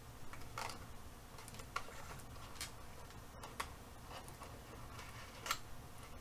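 Faint, irregular taps and light rustles of cardstock being handled and pressed, as glued paper tabs are worked into place by hand. The sharpest tap comes about five and a half seconds in.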